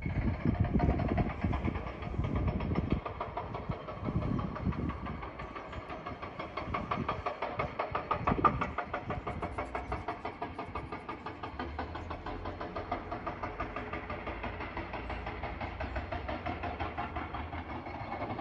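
An engine idling with a steady, rapid chugging of about six beats a second, with louder low rumbling in the first few seconds.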